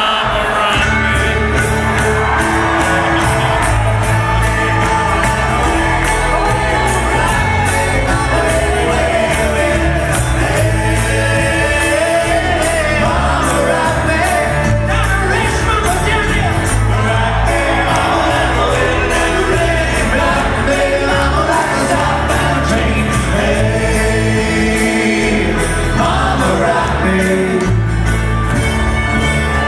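Live string band with banjo, fiddle, upright bass, guitars and drums playing an upbeat song with a steady beat and singing, heard from within the audience in a large hall.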